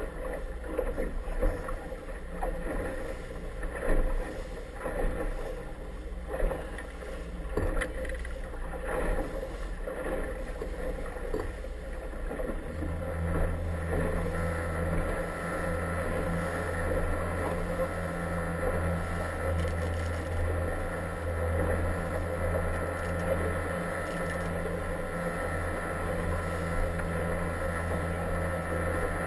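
An inflatable motorboat's engine runs steadily underway, with water slapping and splashing against the hull on the chop. About halfway through, a deeper, steady engine hum comes in and holds.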